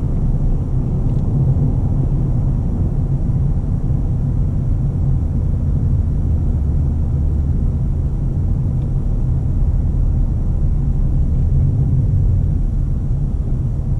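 A car driving along: a steady low rumble of engine and tyres that holds even throughout.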